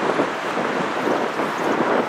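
Wind buffeting the microphone, a loud, steady rushing noise.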